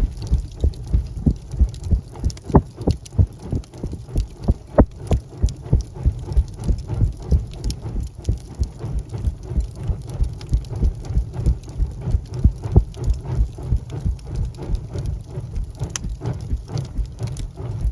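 Wood fire in a fireplace crackling, with dense irregular pops and snaps over a low rumble. A few sharper snaps stand out, about two and a half and five seconds in.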